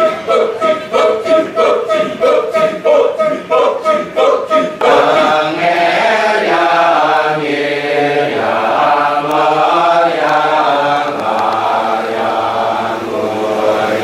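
Kecak chant: a large chorus of voices chanting the 'cak' syllable in a fast, staccato rhythm, about four pulses a second. About five seconds in, the pulsing gives way to sustained, sung voices layered in a chord that glides slowly in pitch.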